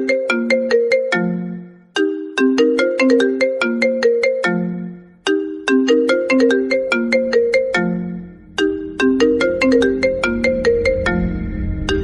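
iPhone ringtone playing: a short melody of quick, bright, plucked notes that ends on a low held note, repeating about every three seconds. Near the end a low bass tone comes in beneath it.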